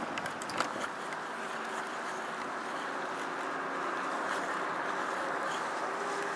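Steady wind and water noise with the faint, even drone of a boat engine underneath, and a few sharp clicks in the first second.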